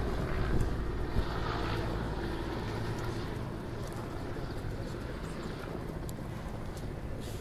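A steady, low engine-like drone mixed with wind noise on the microphone, with a few faint clicks.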